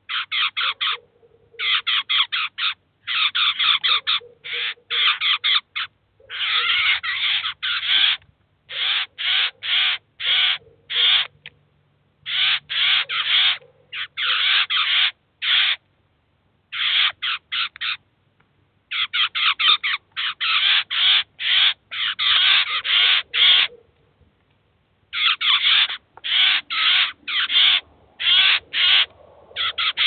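Eurasian jay fledglings begging for food: runs of short harsh calls, several a second, in bursts broken by brief pauses.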